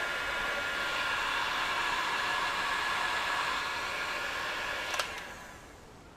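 Heat gun blowing steadily while shrinking glue-filled heat shrink over a wire joint, then switched off with a click about five seconds in and whirring down.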